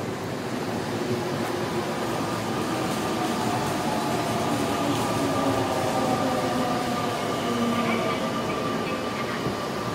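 Electric commuter train running on the rails, growing louder, with its traction motors whining in several tones that slide slowly down in pitch, the sign of the train slowing.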